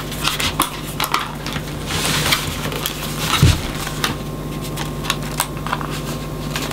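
Plastic clicks and small knocks of a portable cassette player being handled, its cassette lid and buttons worked by hand while working out how the lid opens.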